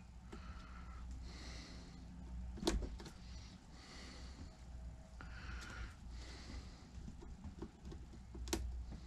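Pliers twisting a thin metal pin through a wooden planking strip into a model ship's frame: faint scratchy handling sounds with two short sharp clicks, one about a third of the way in and one near the end, over a steady low hum.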